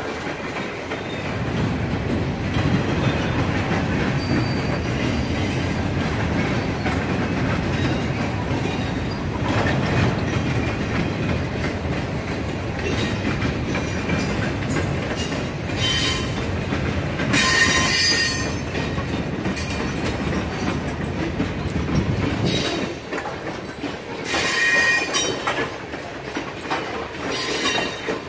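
Freight train cars rolling past with a steady rumble and wheel clatter. Short, high metallic squeals from the wheels break in several times in the second half, the loudest a little after halfway.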